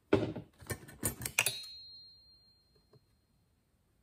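Metal hand tools clattering on a workbench: a few quick knocks and rattles, then one metallic clink about a second and a half in that rings on briefly as it fades.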